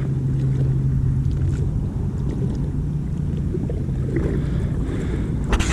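Electric trolling motor on a small fishing boat humming steadily, with wind rumbling on the microphone. A few sharp clicks and knocks come at the very end.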